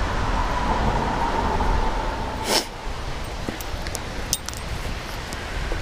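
Wind buffeting the microphone in a steady low rumble, with a sharp click about two and a half seconds in.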